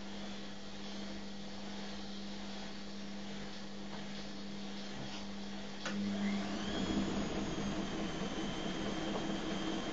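A steady hum, then about six seconds in an electric motor switches on with a click, its whine rising as it spins up and then running steadily and louder.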